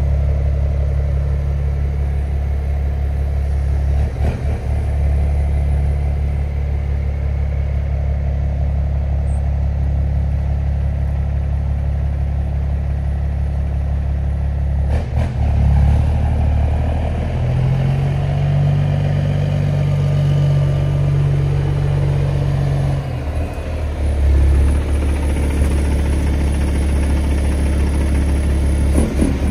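Kenworth W900 semi truck's diesel engine running at low speed as the truck maneuvers, with the engine note rising and holding higher from about eighteen to twenty-three seconds in. Two short sharp sounds cut in at about four and fifteen seconds in.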